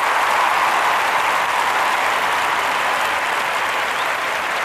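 Studio audience applauding steadily, easing off slightly toward the end.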